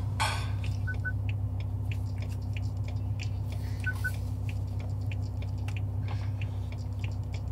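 Idling V10 of a BMW M5 E60, a steady low hum inside the cabin, with light clicks and rustling from a head-strap phone mount being fitted. Two short double beeps sound, about a second in and again about four seconds in.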